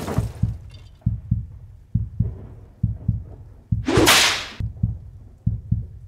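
Intro sound effects: a heartbeat, deep thumps in pairs about once a second, with a loud swoosh about four seconds in.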